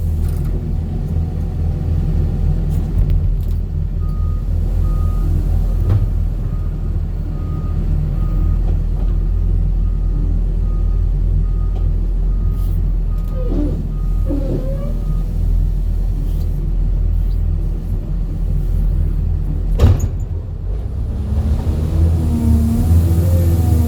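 Steady low rumble of a motor vehicle, with a short electronic beep repeating about once a second for roughly ten seconds and a sharp knock near the end.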